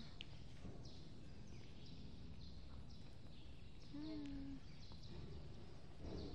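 Small birds chirping, each a quick high call falling in pitch, repeated over and over about every two-thirds of a second. Under them is a low steady hum of the large room, and a brief vocal sound comes about four seconds in.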